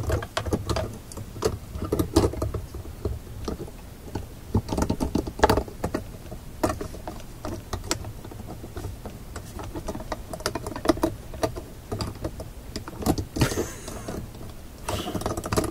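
Repeated small clicks, knocks and rattles of a large magnifying glass on a jointed metal arm being handled and positioned, with two longer rubbing noises near the end, over a steady low hum.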